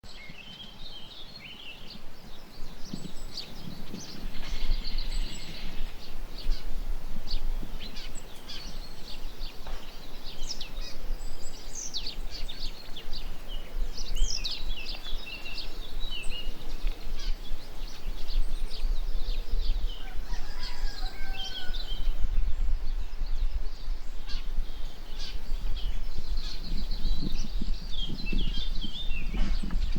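Small birds chirping and singing outdoors in many short, high calls, over a steady low rumble.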